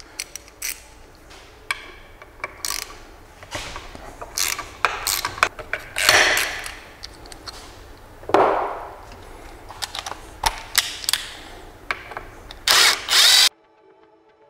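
Hand tools being handled at a workbench while a T40 Torx bit is fetched and fitted: scattered metal clicks and clinks, some ratchet-like clicking, and a few louder handling rustles. A louder burst comes near the end, then the sound cuts off suddenly to faint music.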